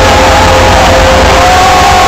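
Festival crowd cheering and shouting over a rock band's long held notes, the whole very loud. A new held note comes in about one and a half seconds in.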